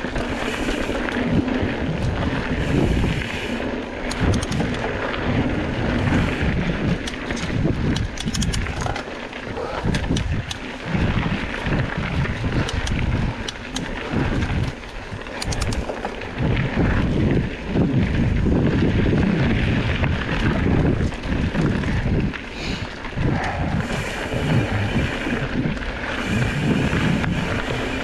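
A mountain bike riding a dirt singletrack, its tyres rolling over dirt under heavy wind buffeting on the microphone. Scattered short clicks are heard throughout.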